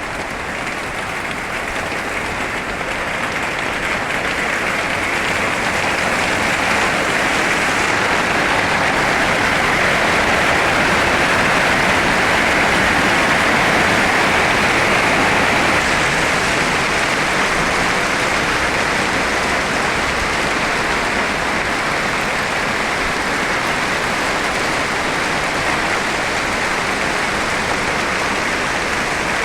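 Heavy rain falling in a dense, steady downpour, growing louder over the first several seconds and easing a little later on.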